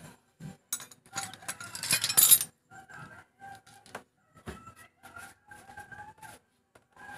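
Metal tools and small engine parts clinking and rattling as hands work on a Yamaha Mio Sporty's cylinder head, with a dense burst of clatter about a second or two in and short ringing clinks after it.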